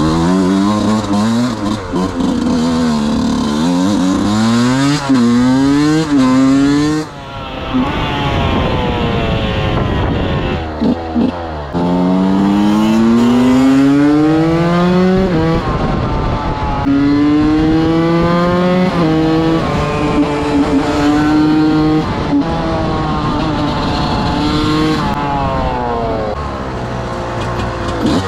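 125 cc two-stroke enduro motorcycle engine being ridden hard, its pitch climbing under throttle and dropping back again and again as gears change. It eases off briefly about 7 s in and again about 11 s in, then pulls up through the gears again.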